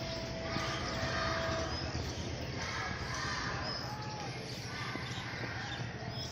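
Busy street ambience: crowd chatter and voices over a steady low rumble, with brief bird chirps. A steady tone is held for about a second and a half near the start, and a shorter one comes around four seconds in.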